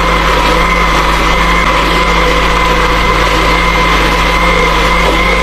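Electric mixer-grinder motor running at a steady speed with an even whine, wet-grinding mint, coriander, green chillies and garlic with water into a smooth green chutney paste.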